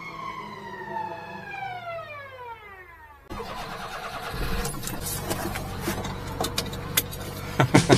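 A whine sliding steadily down in pitch for about three seconds, then a sudden cut to a mini-truck's engine running, with scattered sharp clicks and knocks that grow louder near the end.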